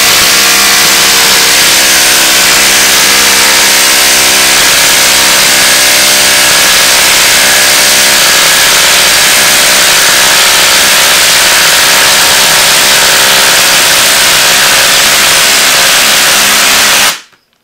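Ryobi P238 18V brushless impact driver hammering continuously in reverse, backing a long half-inch lag screw out of a wood log. It runs steadily and cuts off near the end.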